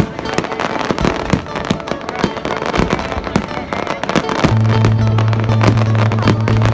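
A rapid barrage of aerial fireworks: many overlapping bangs and crackles. Steady musical tones run underneath, and a loud, low held note comes in about four and a half seconds in.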